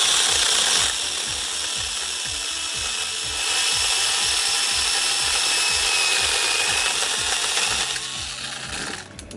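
Small battery-powered mini chainsaw running and cutting through branches. It runs loud, eases off about a second in, picks up again after about three seconds, then tapers off and stops near the end.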